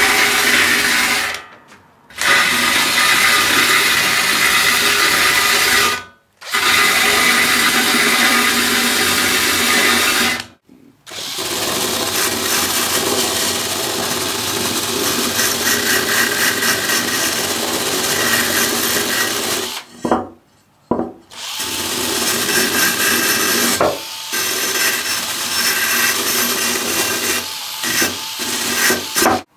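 Cordless drill spinning a sanding star abrasive wheel against metal. The motor runs loud and steady and stops briefly several times before starting again.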